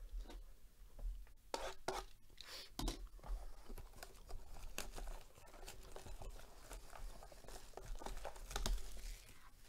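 Plastic shrink wrap being picked at, torn and crinkled off a cardboard trading-card box, in irregular crackles and short rips.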